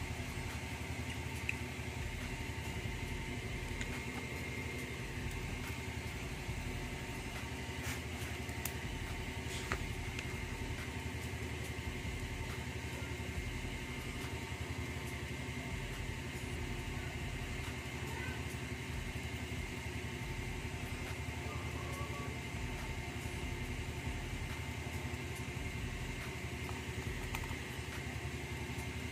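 Steady mechanical hum that does not change in level, with one or two faint clicks about a third of the way in as the parcel is handled.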